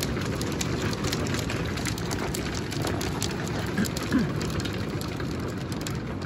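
Thunderstorm hail pelting gravel ground and spruce trees: a dense, steady patter with many sharp ticks of single hailstones striking. A brief, low, falling tone stands out about four seconds in.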